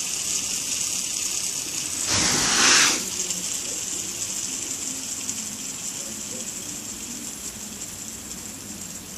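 Fidget spinner whirring with a steady high hiss that slowly fades as it spins down. A brief louder rush about two seconds in.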